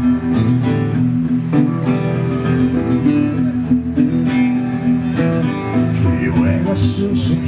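Acoustic guitar music: two acoustic guitars strummed and picked together, with voices coming in near the end.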